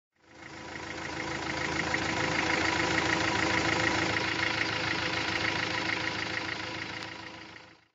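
A motor-vehicle engine idling with an even, rapid knock, fading in over the first second and fading out near the end.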